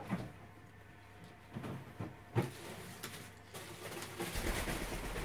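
African grey parrot making a few short, low cooing calls. Rustling handling noise with a low rumble fills the second half.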